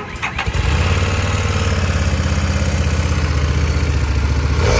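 Harley-Davidson Street Rod 750's liquid-cooled 749 cc Revolution X V-twin engine starting: a brief crank, catching about half a second in, then idling steadily with a regular pulsing beat.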